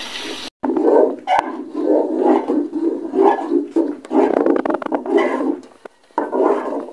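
A steel spoon scrapes and stirs a coarse, sticky flaxseed and jaggery-syrup mixture against a steel pot. It makes rough, irregular rasping strokes with a few sharp clicks of metal on metal.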